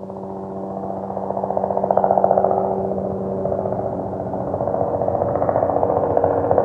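A sound effect: a buzzing, distorted drone on a few steady pitches with a fast even pulse, growing louder.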